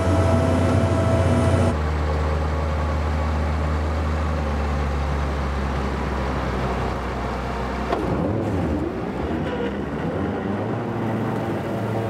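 Diesel engine of a Storti Dobermann SW200 self-propelled feed mixer wagon running steadily. The engine sound changes abruptly about two seconds in, and again about eight seconds in, where the deep steady tone drops away.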